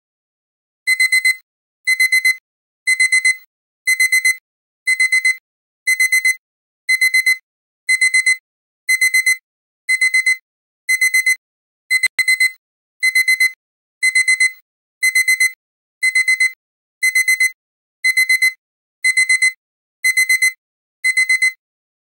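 Countdown timer's alarm going off as the timer runs out: high-pitched electronic beeping in quick clusters of several beeps, one cluster about every second, starting about a second in.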